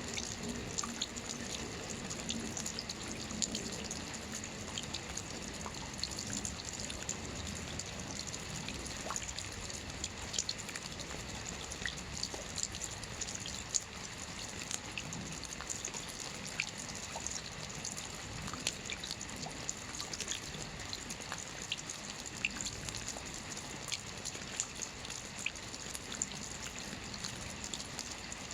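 Steady rain: an even hiss with many separate drops ticking sharply on a near surface.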